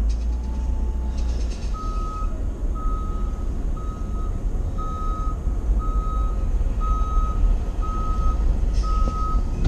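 Vehicle backup alarm beeping steadily at one pitch, about once a second, starting about two seconds in, over the low rumble of a van's engine heard from inside the cab.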